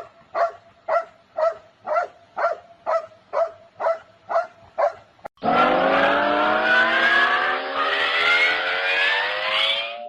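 A short pitched squeak or yelp repeated evenly about twice a second. About five seconds in, it cuts abruptly to a louder engine-like sound whose pitch climbs steadily, like a motor revving up.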